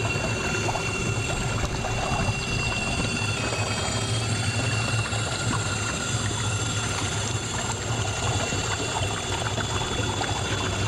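Small electric outboard motor running on a kayak: a steady electric whine with a low hum, over water rushing and trickling past the hull. About a third of the way in, the whine dips slightly in pitch for about a second.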